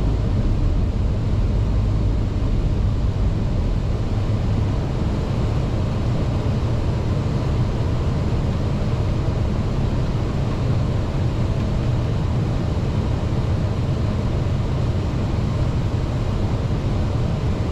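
Steady in-flight noise on an Airbus A320 flight deck: a constant low rumble with a hiss over it, unchanging throughout.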